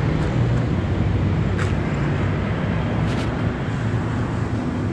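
A vehicle engine running steadily with a low rumble, with a couple of faint clicks over it.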